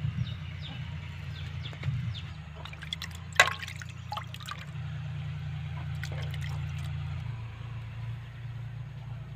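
Water sloshing and dripping in a steel bucket as hands wash mushrooms in it, with a sharp knock about three and a half seconds in, over a steady low hum.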